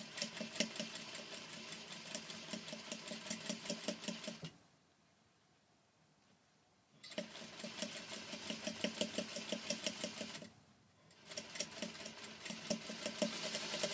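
Sewing machine stitching fabric at a fast, even speed, with rapid regular stitch ticks. It runs in three stretches, stopping for a couple of seconds about four and a half seconds in and briefly again near eleven seconds.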